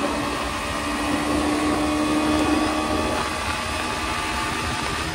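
Bajaj Pulsar NS125's 125 cc single-cylinder engine running at a steady speed while the bike is ridden along a road, with wind and road noise over it.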